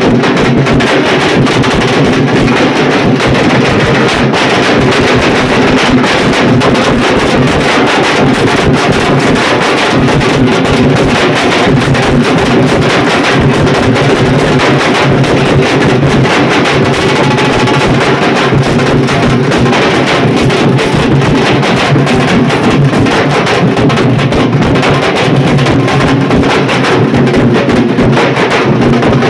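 A group of large barrel-shaped dhol drums beaten with sticks, playing a fast, dense, continuous rhythm at high volume.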